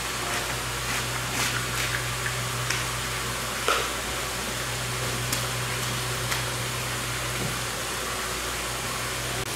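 Steady low machine hum with scattered clicks and scrapes of a large knife cutting around the head of a giant bluefin tuna. The sharpest knock comes a little under four seconds in.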